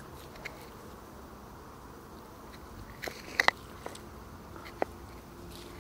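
Raw meat chunks being pushed onto a wooden stick skewer by hand: a few short, moist squelching clicks, the loudest cluster about three seconds in.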